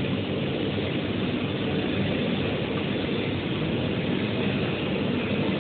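YD-2513 UV flatbed printer running as it prints, with its print carriage and UV lamp passing over the board: a steady, even machine noise, mostly low-pitched.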